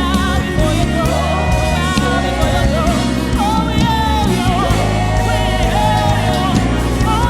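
Live gospel worship music: singers with vibrato over a sustained band accompaniment with a steady bass.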